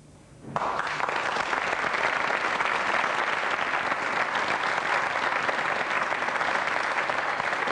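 Studio audience applauding, starting abruptly about half a second in and holding steady.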